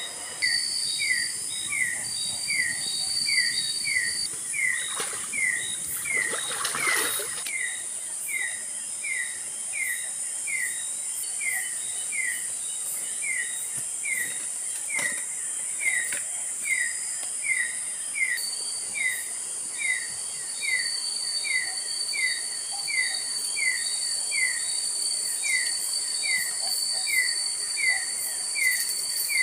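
Forest insects keep up a steady high buzz, while a short, falling chirp repeats evenly about every two-thirds of a second. A brief rushing noise comes about six to seven seconds in.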